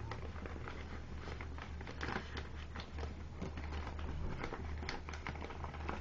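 A sheet of origami paper rustling and crinkling in small, irregular crackles as hands work inside its folds, over a steady low hum.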